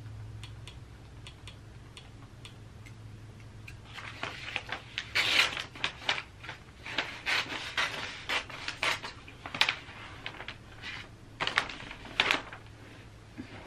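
A few faint clicks, then from about four seconds in, wrapping paper crinkling and rustling loudly in irregular bursts as it is handled and cut with scissors.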